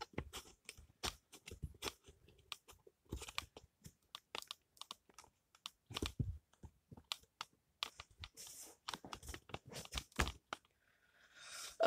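Irregular clicks, knocks and scrapes of a tripod part being screwed back on, handled close to the microphone, with a brief rustle near the end.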